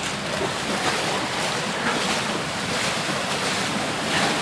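Steady rushing noise of flash-flood water running through the street under pouring rain.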